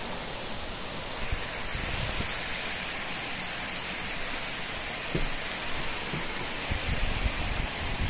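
Torrential rain pouring down in a steady, dense hiss. A few short low thumps come about five seconds in and again around seven seconds.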